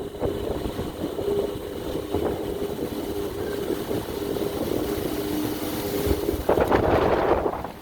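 Storm wind blowing and buffeting the microphone over a steady low machine hum, with a stronger gust near the end.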